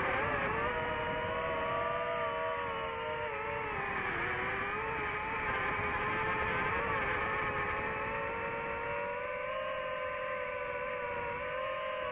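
FPV quadcopter's electric motors and propellers whining steadily as it flies, recorded on board. Several tones drift slightly with the throttle, dipping about four seconds in and rising again.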